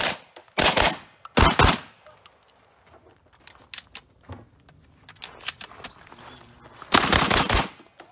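Franchi SPAS-12 12-gauge shotgun firing Remington 00 buckshot: a quick string of blasts in the first second and a half, then small clicks as two shells are loaded into the magazine tube, then another burst of blasts about seven seconds in.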